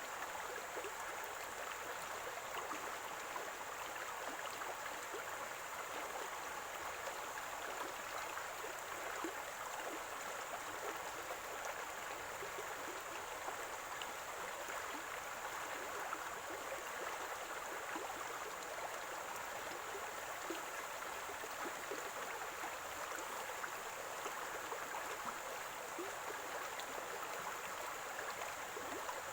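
Running water in a small stream, gurgling steadily.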